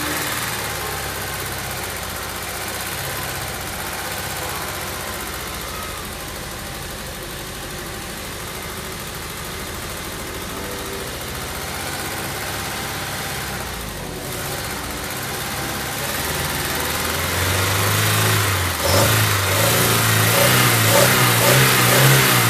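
Honda S2000's four-cylinder engine running steadily, then rising in pitch and growing louder over the last few seconds as it is revved.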